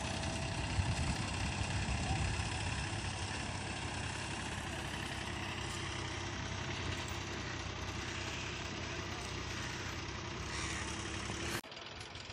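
Diesel tractor engine running steadily while the tractor is stuck in a flooded paddy field's mud. The sound drops abruptly a little before the end.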